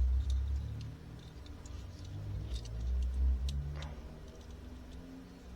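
Handling noise from a plastic toy figure: a scatter of faint light clicks over low, dull thumps and rubbing.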